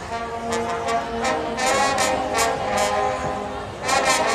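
Trombone section playing together in loud brass chords, with a run of short accented blasts about a second and a half in and another loud blast near the end.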